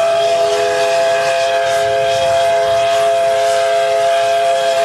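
Ship's whistle sounding one long blast, a chord of several steady notes held without a break, with a hiss behind it.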